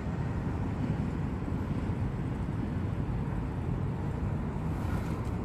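Steady low outdoor rumble, wind on the microphone or distant traffic, with no distinct events; any whir from the hand-held fidget spinner's bearings does not stand out above it.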